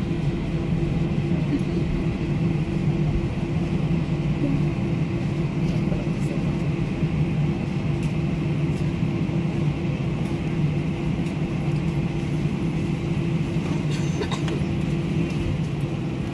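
Airbus A319 jet engines at idle thrust while the airliner taxis, heard from inside the cabin as a steady hum, with a few faint clicks near the end.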